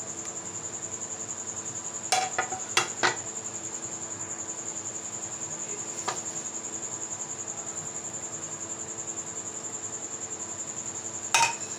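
A cricket chirping steadily in a fast, even pulse, with a few sharp knocks and clinks against a metal cooking pot as ingredients and a spoon go in: a cluster about two to three seconds in and a louder one near the end.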